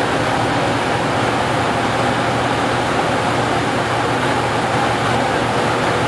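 XCMG XLZ230K cold recycler at work, its engine running under load and its rotor grinding up the old road surface: a steady, heavy mechanical noise with a low hum.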